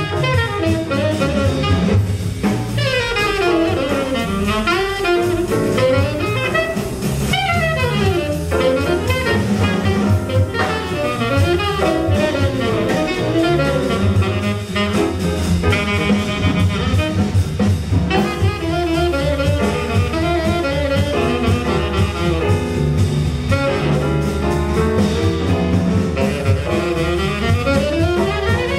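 Tenor saxophone playing fast runs that sweep up and down, backed by grand piano, upright bass and drum kit in a small jazz combo.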